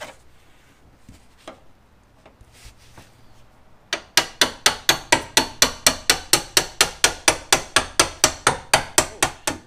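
Hammer striking a seam separator to drive it into the spot-welded seam of a car's steel quarter panel. A few light taps come first, then from about four seconds in a steady run of sharp blows at about four or five a second.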